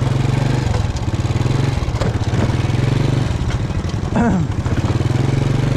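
Small motorcycle engine running steadily while riding, with a fast, even pulsing hum. Brief bits of voice are heard over it.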